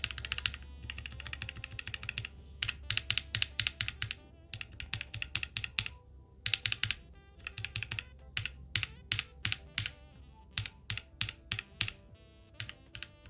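Typing on a mechanical keyboard fitted with lubed KK Lightwave V2 linear switches, keystrokes in quick runs with short pauses, over background music.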